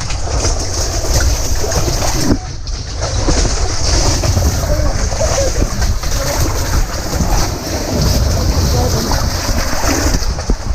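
Loud, steady rush of whitewater in river rapids, with low buffeting rumble on the microphone; the noise drops briefly about two seconds in.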